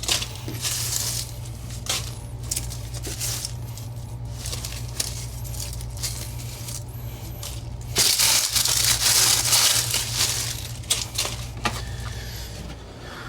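Rustling, crinkling and small clicks of plants and pots being handled, over a steady low hum. A louder stretch of rustling comes about eight seconds in and lasts a couple of seconds.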